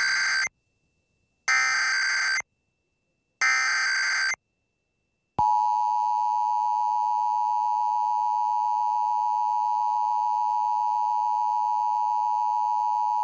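Emergency Alert System test header: three short bursts of SAME digital data tones, each about a second long and a second apart, then the EAS attention signal, a steady two-tone alert of 853 and 960 Hz, starting about five seconds in.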